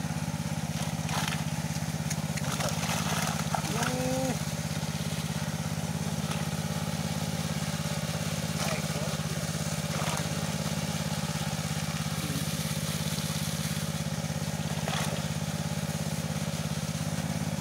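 Steady, even low drone of a small engine running, with occasional rustles and knocks of plastic bags being handled.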